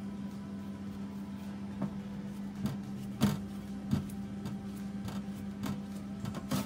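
A steady low hum with about six light clicks and knocks of things being handled during food preparation; the loudest knock comes about three seconds in.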